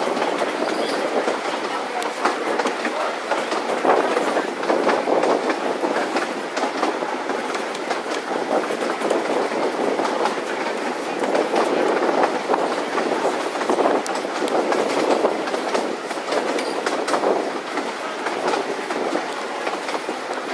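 Narrow-gauge train running along the track, heard from an open carriage window: a steady rumble with the wheels clicking over the rail joints.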